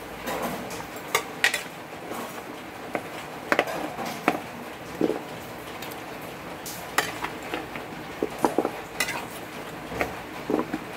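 Water boiling around pork rib bones in a stainless steel pot, bubbling steadily, with scattered clinks and taps of a metal utensil against the pot.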